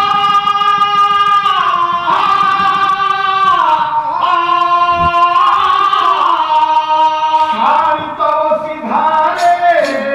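A man singing in Odia Pala folk style, holding long high notes that slide from one pitch to the next. A few short, sharp strikes join in near the end.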